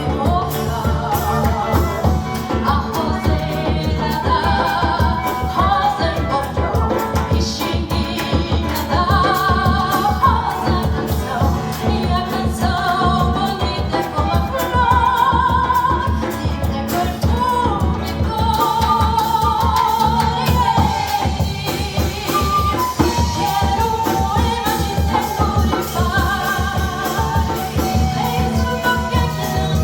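Samba-enredo performed by a small ensemble: a woman singing the melody with flute, guitar and hand percussion keeping a steady beat.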